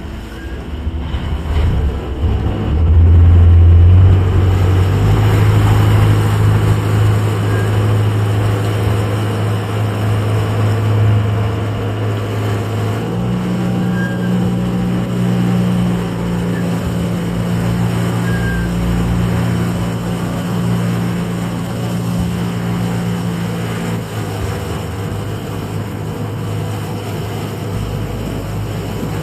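Small ferry boat's engine running steadily, a low hum whose pitch shifts a few times as the engine speed changes; loudest a few seconds in.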